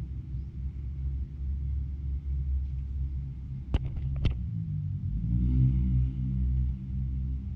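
Steady low rumble, with a cluster of sharp taps about four seconds in as a cardboard figure box is turned over by hand. A louder low hum with a steady pitch swells in the last two seconds.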